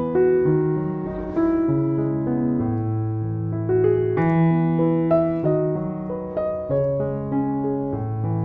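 Background piano music: a slow, gentle tune of single melody notes over sustained bass notes that change every second or two.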